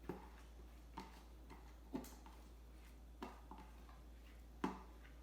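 Five light, sharp taps about a second apart, with quiet between them: kitchen utensils knocking as kimchi sauce is scooped into the mixing bowl.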